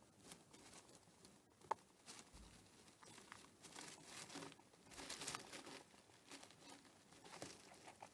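Hamster faintly rustling and scratching about, making irregular crinkly, papery rustles and small clicks, with one sharp click about two seconds in and the busiest rustling past the middle.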